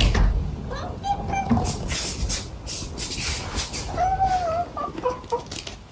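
A calico cat meows: a short call about a second in, a longer meow that rises and falls about four seconds in, then two short chirps. A lever door handle clicks as the door is opened at the start, with scuffling noise between the calls.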